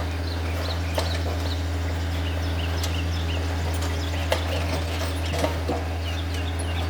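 Takeuchi TB153 compact excavator's diesel engine running steadily, with a few sharp knocks and runs of short, high chirps over it.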